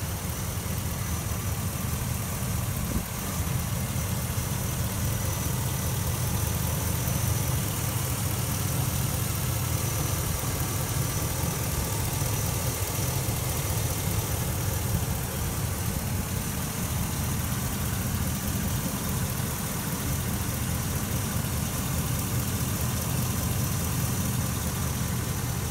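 A 2012 van's engine idling steadily, heard with the microphone down in the open engine bay.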